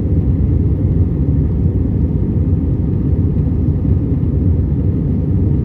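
Steady low rumble of an Airbus A320-200's jet engines and airflow as heard inside the passenger cabin.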